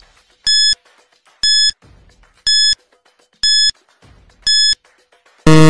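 Quiz countdown timer giving five short electronic beeps, about one a second, then a louder, longer buzzer as the countdown runs out.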